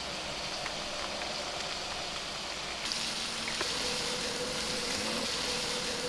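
Steady rushing of a stream, with a faint steady hum coming in about halfway and a few light ticks.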